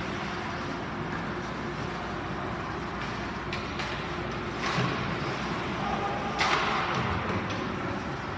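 Ice hockey play heard over a steady background hiss: skates scraping on the ice and a few sharp clicks of sticks and puck, with a louder scrape about six and a half seconds in.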